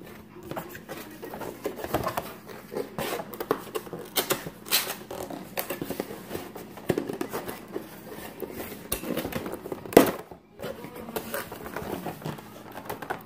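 Cardboard toy box with taped flaps being pried open and handled: irregular scraping, crinkling and tearing of cardboard and tape, with one sharp, loud snap about ten seconds in.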